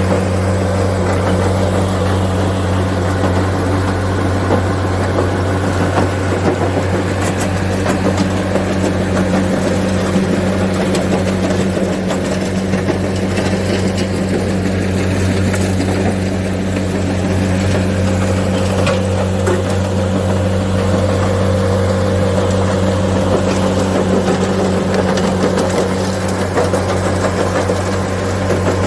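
Engine of a CR450 rubble crusher and excavator running steadily at an even pitch, with occasional faint knocks.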